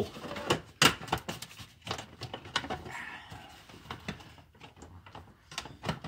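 Irregular clicks and light knocks of hand tools and small metal and plastic parts being worked at a 1999 Blazer's steering column.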